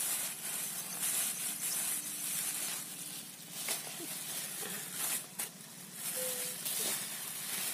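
Thin black plastic bag rustling and crinkling, with many short crackles, as hands open it and tip out small fish.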